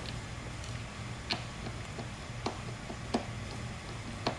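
A screwdriver clicking against metal cam lock bolts as they are tightened into the tabletop: sharp, irregular clicks, about six in four seconds.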